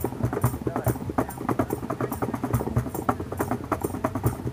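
Live hand-drum groove: djembe and other percussion played in a fast, even rhythm of sharp slaps and low thumps.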